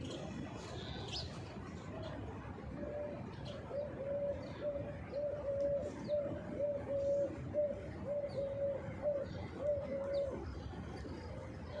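A dove or pigeon cooing: a long, even series of short notes at one pitch, about two or three a second, starting about three seconds in and stopping near the end. Small birds chirp faintly now and then.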